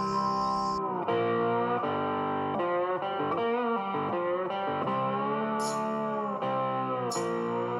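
Background music: a guitar playing a melody with bending, sliding notes, and a brief high splash twice in the second half.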